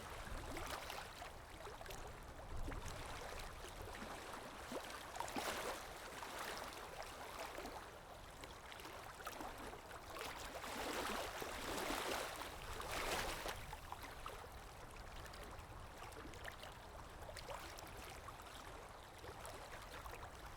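Canaries bathing, splashing the water in their bath dish in uneven bursts, the biggest a little after the middle.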